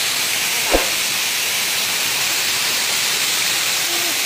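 Waterfall rushing as a steady, loud hiss, with one short thump and a brief falling tone about three-quarters of a second in.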